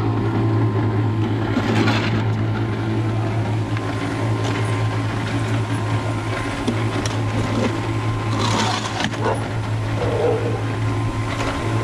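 Electric concrete mixer running with a steady hum, while a steel shovel scrapes and scoops cement mortar in a metal trough, scraping loudest about two seconds in and again near the end.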